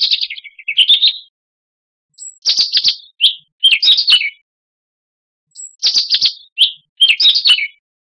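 European robin singing: short, high, twittering song phrases separated by silent pauses of a second or more. The last phrase repeats the one before it almost note for note.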